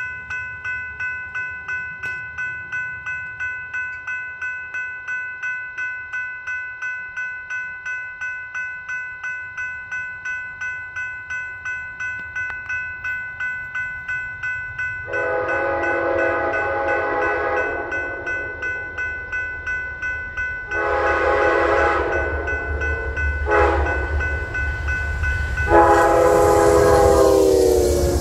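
Railroad grade-crossing warning bell ringing with rapid, even strokes. Then an Amtrak passenger locomotive's horn sounds the crossing signal: long, long, short, long. The last blast drops in pitch as the engine reaches the crossing, over the rising rumble of the approaching train.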